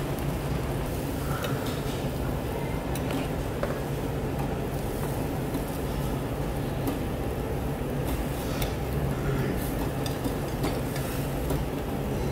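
Pan of stew boiling on a tabletop gas burner, with a metal ladle stirring and now and then clicking against the pan, over a steady low hum.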